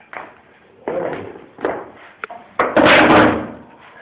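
Knocks and thuds of laminate floor planks being handled and set down on the floor: a few sharp knocks, then a louder, longer clatter near three seconds in.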